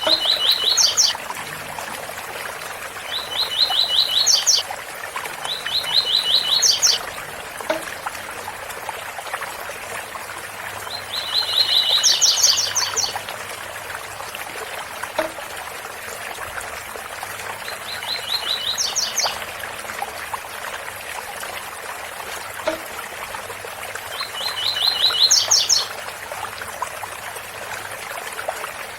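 Double-collared seedeater (coleiro) singing its 'tui tui' song type: six short phrases of rapid high notes, each rising at the end, at irregular intervals. A steady waterfall hiss runs beneath.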